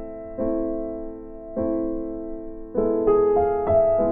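Slow, soft piano music: chords struck about every second and left to fade, with a few quicker notes about three seconds in.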